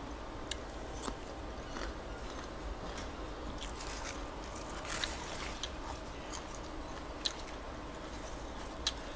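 Soft crisp crunches and crackles from fresh lettuce and herbs being picked and torn with gloved hands, mixed with mouth-close chewing, with a brief crisp rustle about four seconds in.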